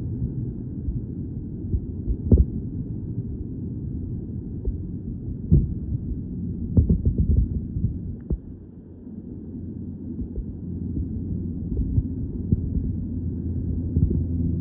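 Muffled underwater sound of a snorkeler's submerged camera: a low rumbling water wash with scattered sharp clicks and knocks.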